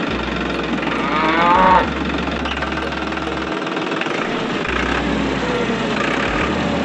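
Small motor of a homemade toy tractor running steadily. About a second in, a loud pitched call rises and breaks off sharply just before two seconds, and fainter pitched calls follow later.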